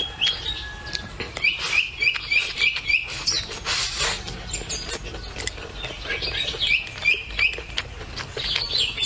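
Close-miked eating sounds: wooden chopsticks clicking against a bowl and a person chewing and slurping rice. A small bird chirps in the background in quick runs of short notes, twice, with a few more notes near the end.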